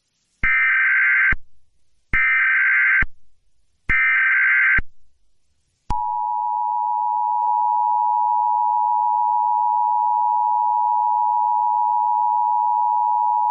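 Emergency Alert System SAME header: three short bursts of shrill warbling digital data tones, each about a second long, then about six seconds in the steady, loud two-tone EAS attention signal (853 and 960 Hz) starts and holds. The sequence announces a child abduction emergency (Amber Alert) broadcast.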